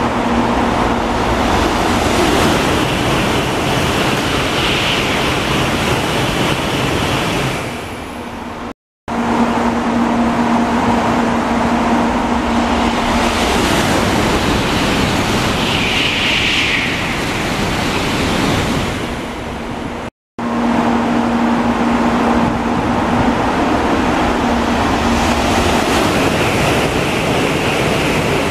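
N700-series Shinkansen bullet trains passing through at high speed without stopping: a loud, steady rushing noise with a faint hum in it. Three passes follow one another, each broken off abruptly about 9 s and 20 s in.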